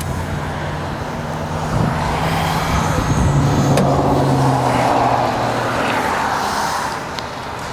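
1998 Honda Valkyrie GL1500's 1500cc six-cylinder boxer engine idling smoothly through its pipes, a little louder for a few seconds in the middle. It is the sound of a healthy engine.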